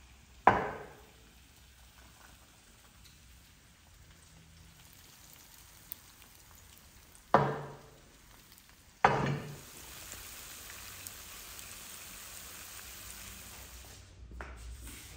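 A large aluminium pan of fish knocking down onto a stovetop: three sharp clanks, the last one about nine seconds in followed by a steady sizzle that stops near the end.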